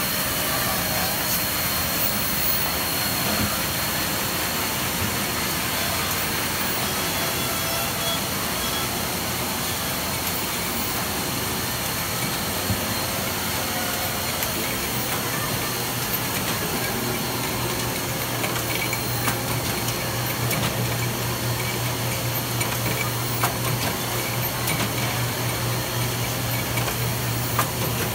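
Bindery gathering machinery running, a steady mechanical clatter with a constant high whine and scattered light clicks. A low hum comes in about halfway through.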